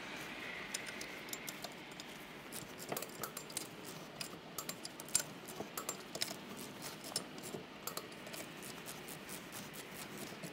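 Torque wrench being worked on car wheel bolts: scattered, irregular light metallic clicks and ticks as the bolts holding a towing hub to the wheel hub are torqued up.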